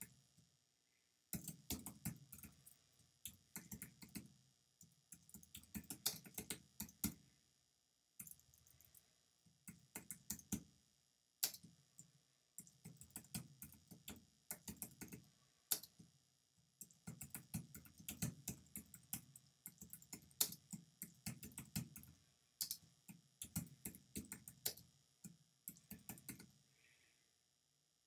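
Typing on a computer keyboard: fast runs of key clicks in bursts, with brief pauses every few seconds.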